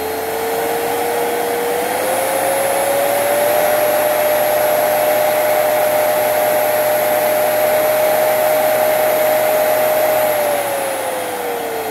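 Treadmill DC motor running unloaded and overdriven past its roughly 180-volt rating. Its whine rises in pitch as the speed controller is turned up to about 300 volts, holds steady, then falls from about ten seconds in as the motor slows.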